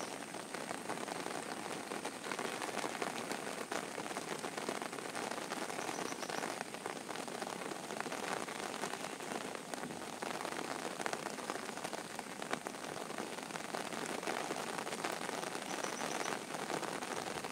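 Heavy rain pouring steadily onto waterlogged ground and foliage: a dense, even hiss of drops that does not let up.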